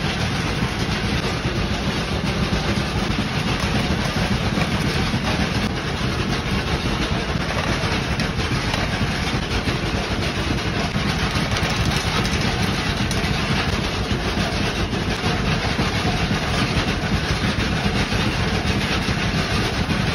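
Steady, unbroken machine drone with a strong low hum, unchanging throughout.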